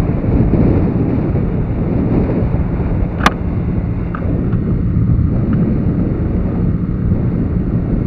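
Wind buffeting the microphone over the steady running of a small motorbike engine while riding. There is a single sharp click about three seconds in.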